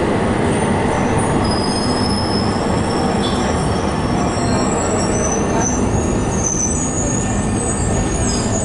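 Fiat Ferroviaria 4900-series tram running along its rails, heard from inside the car: a steady rumble with high, thin, wavering wheel squeal setting in about a second in and fading near the end.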